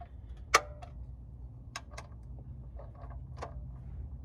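Several separate sharp clicks and taps of hand tools being handled during an oil change, the loudest about half a second in, over a low steady hum.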